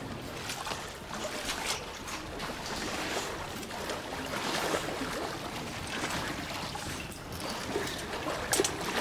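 Water sloshing and trickling, with small knocks and scrapes, as men crawl through a narrow, wet tunnel.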